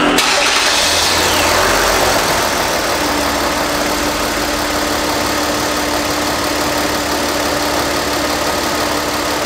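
Kia Mohave's engine idling steadily with the hood open, loud and even, with a steady hum joining about three seconds in.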